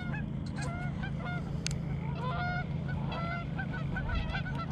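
Many geese honking, short overlapping calls repeated throughout, over a steady low hum.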